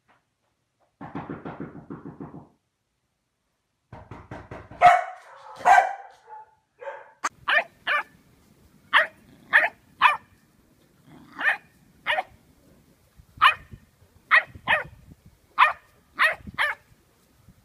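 A dog barking. A low, pulsing rasp and a couple of loud, rough barks come first, then a run of about fifteen short, sharp single barks, unevenly spaced, from a bulldog sitting up on its haunches.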